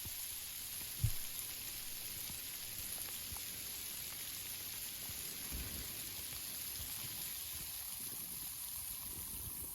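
Steady rain falling on tree foliage, an even hiss of drops, with one short low thump about a second in.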